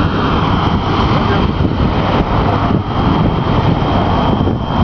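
Alarm system sounding one steady, continuous high-pitched tone, over a loud steady rumble.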